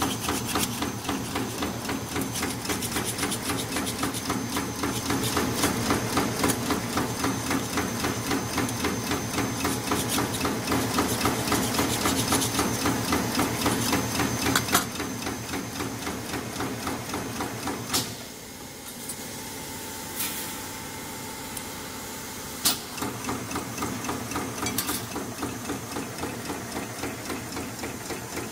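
High-speed radial wire spot welding machine for fan guards running, a rapid, even mechanical clatter as it welds the radial wires to the inner ring. A little past the middle the clatter stops for a few seconds, leaving a faint steady tone broken by a sharp clack, then it starts again.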